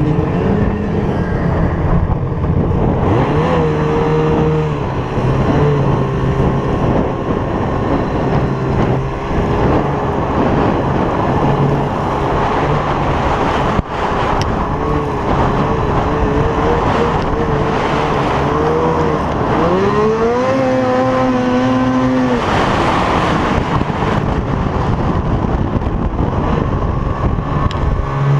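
Two-stroke snowmobile engine running under throttle through deep snow, its pitch rising and falling as the throttle is worked. It revs up sharply about twenty seconds in and drops back a couple of seconds later.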